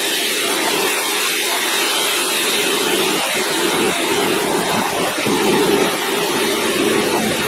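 Bench grinder's wire wheel running at speed with a steel breaker bar held against it, brushing off surface rust: a steady whirring with an even hiss over it.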